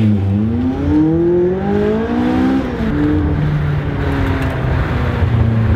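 McLaren supercar's twin-turbo V8 accelerating hard from inside the cabin: the engine note climbs for about two and a half seconds, drops sharply at an upshift, then pulls on at a steadier, lower pitch.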